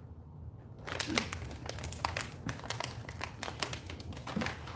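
Clear plastic bag crinkling as it is handled, an irregular run of crackles starting about a second in.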